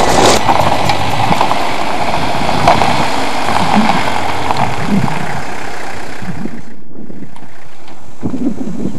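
Minibus engine running as the van drives up on gravel and stops. The sound drops out briefly about seven seconds in, and a quieter steady noise follows.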